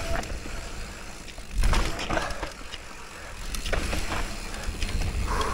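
Downhill mountain bike rolling down a rough, steep trail: tyre noise over dirt and rocks with knocks and rattles from the bike, rising to a louder rush about a second and a half in.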